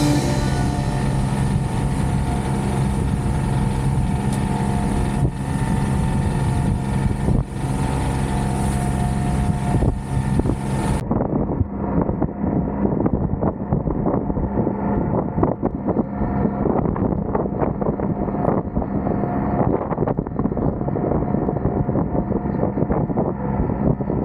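An engine running with a steady drone, with wind buffeting the microphone; about eleven seconds in the sound cuts abruptly to a duller, rougher stretch of engine and wind noise.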